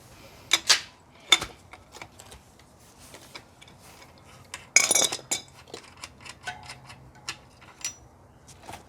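Metal tools and bicycle parts clinking and clicking as they are handled, with one louder clatter about five seconds in.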